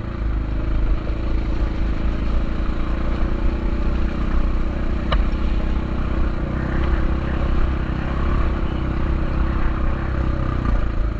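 Motorcycle engine running steadily while the bike is ridden, with a single sharp click about five seconds in.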